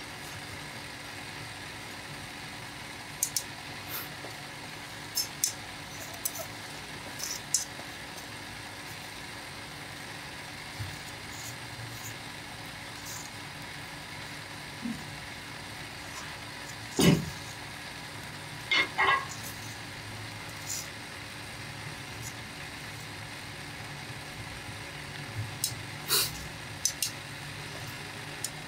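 Scattered sharp clicks and knocks of metal hand tools against a steel sand-casting flask and packed moulding sand, the loudest a single knock about halfway through, over a steady background hum.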